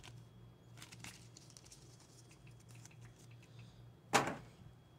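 Small paper game cards being handled, with light rustling and clicking, then a single sharp knock about four seconds in as they are set down in the box's plastic tray.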